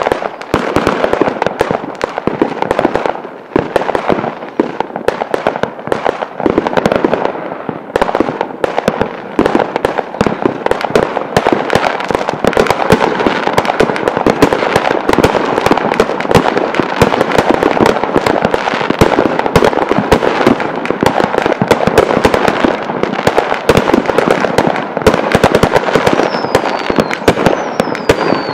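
Fireworks going off in rapid, overlapping bangs and crackles, with a high falling whistle near the end.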